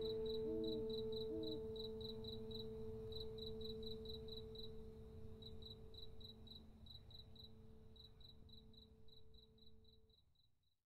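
Crickets chirping in quick even runs, about five chirps a second, over a low held note. Both fade out steadily to silence near the end.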